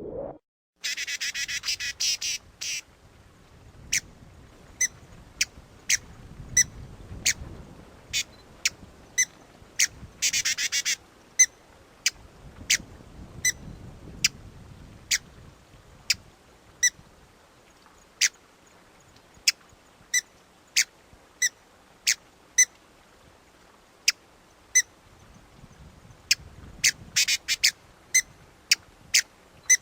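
Hummingbird calling: single short, high chips repeated roughly once a second, broken three times by quick rapid chittering runs, near the start, around ten seconds in, and near the end.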